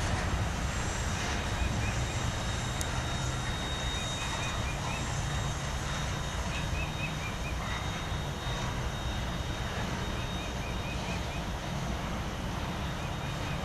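Steady low rumble of a diesel freight train as its last car goes by and the train moves off. A small bird chirps in short runs of quick notes every few seconds.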